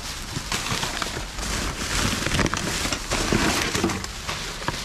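Rubbish being rummaged through by hand in a dumpster: irregular rustling, crackling and light knocks.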